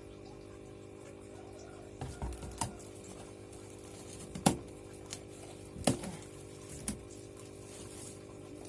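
Hands handling a cardboard parcel to open it: a few scattered knocks and clicks, the loudest about four and a half seconds in, over a steady hum.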